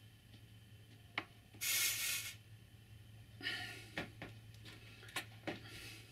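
Soldering a wire dropper onto copper tape: a sharp click about a second in, a short hiss of under a second, another brief hiss, then a few small clicks and taps of the iron and wire. A steady low hum runs underneath.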